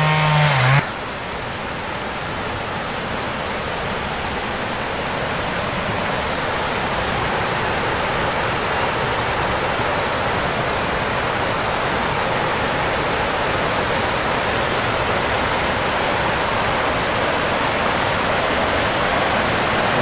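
Swift river water rushing over rocks and a small waterfall, a steady rush that grows a little louder.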